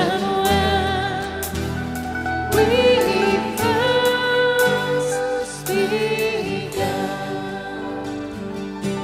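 Live church worship band playing a slow hymn: a man sings lead in long held notes over strummed acoustic guitar, keyboard and a drum kit with cymbal hits.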